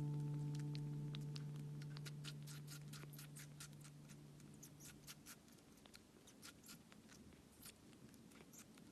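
Faint, rapid wet clicks and smacks of a kitten suckling milk from a feeding syringe, several a second, while a lingering guitar chord fades out over the first five seconds.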